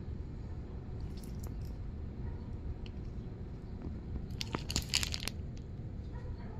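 Clear plastic wrapping crinkling in a short cluster of crackles about four and a half seconds in, over a steady low rumble.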